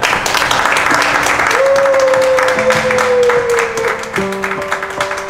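A small group applauding and clapping, loudest in the first two seconds and then thinning to scattered claps, with music playing over it.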